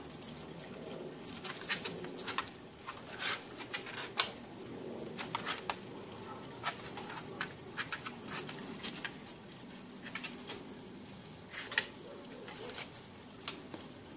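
Pet skunk scratching and rummaging in a box: irregular scratches and light taps in clusters, with short pauses between.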